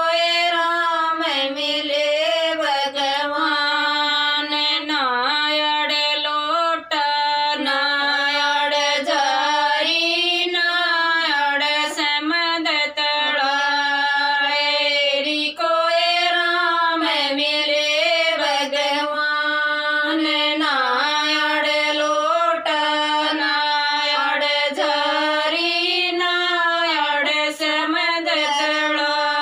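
Women's voices singing a Haryanvi devotional folk song (bhajan) together, in long drawn-out melodic phrases with brief breaths between lines.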